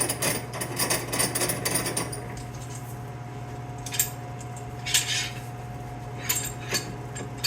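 Steel welding F-clamp being worked and tightened, with rapid metal clicking and rattling for about two seconds, then a handful of separate metal clinks about a second apart. A steady low hum runs underneath.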